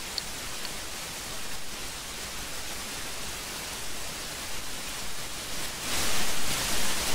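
Steady outdoor background hiss with no distinct events, getting louder about six seconds in.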